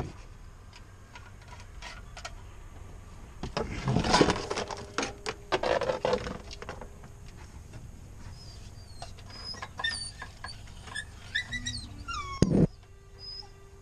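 Handling noises from routing an air-suspension air line: rustling, clicks and knocks, busiest a few seconds in, with a loud knock near the end. A run of short, high chirp-like squeaks comes in the second half.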